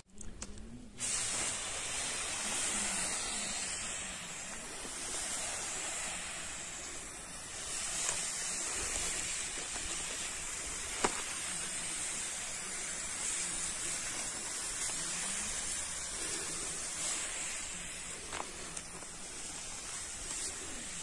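Hand-pump pressure sprayer spraying a fine mist from its nozzle: a steady hiss that starts about a second in.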